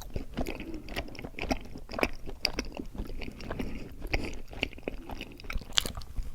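Close-miked chewing of mochi ice cream: soft, sticky mouth sounds with irregular wet smacks and clicks, a sharper click near the end.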